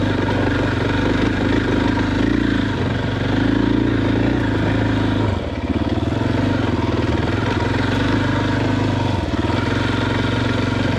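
2021 KTM EXC 500's single-cylinder four-stroke engine running steadily while trail riding, its note dipping briefly about five and a half seconds in and again near nine seconds.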